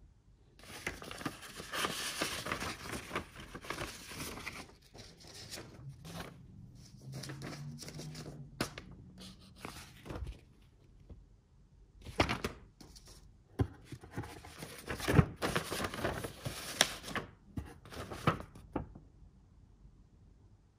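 Paper being handled: a paper envelope and a folded letter rustling and crinkling, in two stretches of rustling with sharp crackles as the letter is taken out and unfolded.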